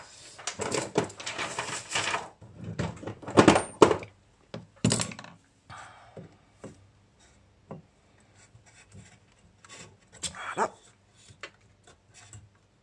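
Hands handling an open power-supply chassis and its wiring: irregular rubbing and scraping with a few sharper knocks, the loudest about three and a half and five seconds in and another about ten and a half seconds in.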